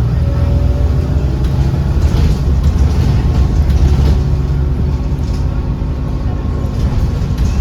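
Volvo B7RLE bus's diesel engine and ZF automatic gearbox running under way, a steady heavy low drone. Loud cooling fans run alongside, making the bus sound rather unhealthy.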